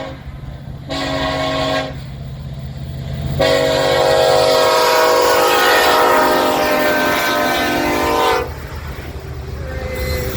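Horn of the lead BNSF SD70ACE diesel locomotive sounding as the grain train approaches: one short blast about a second in, then a long blast of several seconds, over the low rumble of the diesel engines.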